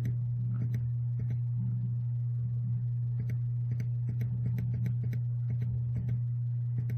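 Computer mouse clicking irregularly, several clicks in quick runs, over a steady low hum.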